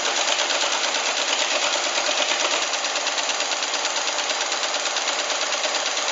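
IBM 029 card keypunch duplicating a card: the punch mechanism clatters in a fast, even run of clicks as it reads the master card and punches the copy column by column. This shows that its read station and punches are working.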